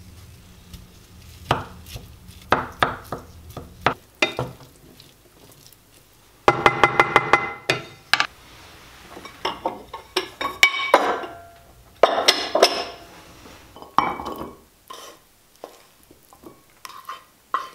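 Wooden spatula stirring and scraping food around a nonstick frying pan, with repeated knocks and scrapes against the pan. Near the end the pan is tipped and scraped out into a ceramic bowl. A low hum is under the first six seconds and then stops.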